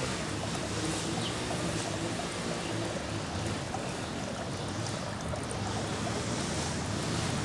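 Steady outdoor background noise, an even rushing hiss with a low hum underneath.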